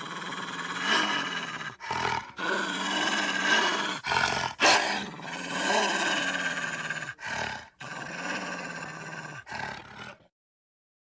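Wolf growling in long, rough stretches broken by short pauses, stopping about ten seconds in.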